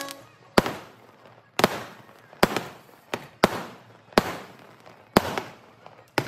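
Aerial fireworks bursting overhead: about eight sharp bangs at uneven intervals, each trailing off in a fading echo.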